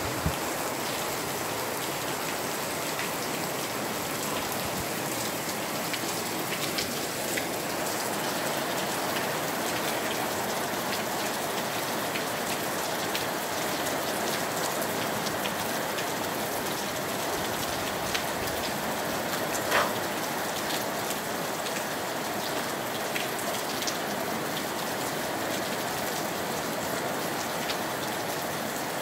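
Steady rain falling, an even hiss dotted with the ticks of single drops; one louder drop tap comes about twenty seconds in.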